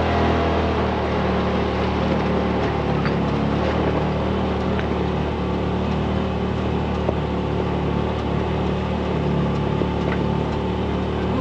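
Side-by-side UTV engine running at a steady speed.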